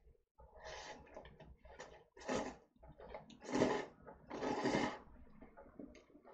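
Dark, sauced instant cup noodles (spicy Chapaguri) being slurped and chewed close to the microphone: about five quick sucking slurps, the longest and loudest a little past halfway.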